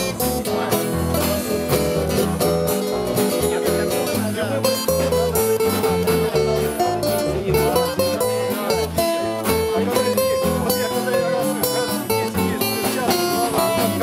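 Live band playing an instrumental break: strummed acoustic guitars with electric guitar and bass guitar keep a steady rhythm under a melody line.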